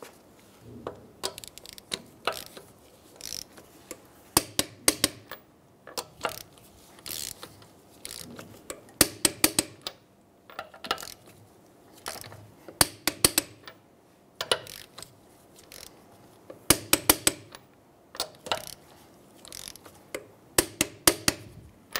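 A torque wrench ratcheting in short runs of quick clicks, again and again, as the lug nuts are tightened in turn to 85 foot-pounds.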